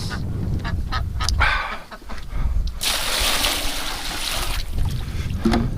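Domestic ducks and geese calling, over wind rumbling on the microphone. A loud rushing hiss comes in about three seconds in and lasts nearly two seconds.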